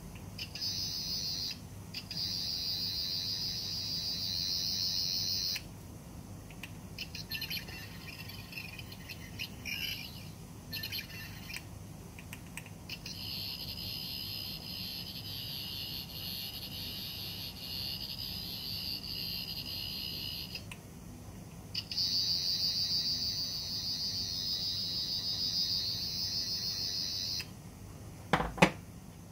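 Sonic screwdriver prop's electronic sound effect: a high-pitched buzzing tone played in several bursts of a few seconds each, with short gaps between. A single sharp knock near the end.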